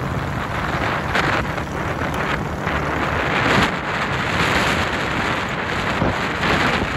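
Motorcycle engine running steadily at cruising speed under heavy wind noise on the microphone; the exhaust is loud enough that the bike is said to need a new muffler.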